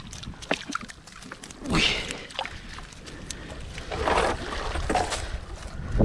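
Cast net being hauled out of the sea, water splashing and dripping off the mesh, with small ticks throughout. The louder splashes come about two seconds in and again around four to five seconds in.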